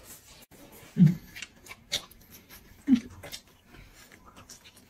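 Mouth sounds of eating at the table: faint chewing and lip-smacking clicks, with two short grunts about a second and three seconds in.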